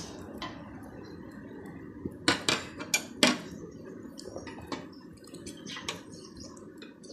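Metal cutlery clinking and scraping against a ceramic noodle bowl during eating, with a quick run of sharp clinks about two to three seconds in and a few fainter ones later.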